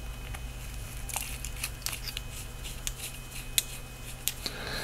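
Small metallic clicks and scraping as a flashlight is screwed back together after its battery was shown. A faint steady low hum runs underneath.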